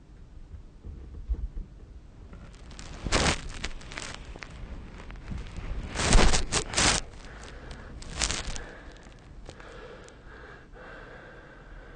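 A sleeping person snoring, with loud, noisy breaths: one about three seconds in, three in quick succession around six to seven seconds, and one more just after eight seconds.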